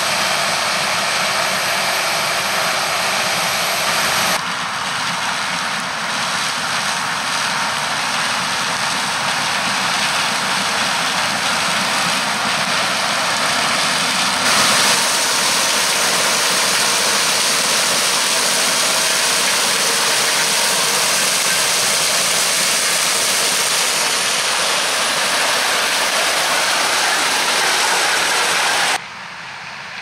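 Claas Lexion 770 combine harvester working in grain maize: a steady, dense machine noise of engine and threshing. It shifts abruptly about four seconds and fifteen seconds in, and drops markedly quieter near the end.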